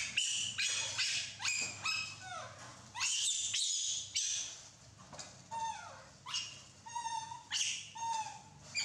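Baby macaques giving repeated short, high-pitched squeaky calls, most sliding down in pitch, one or two a second, over a faint low steady hum.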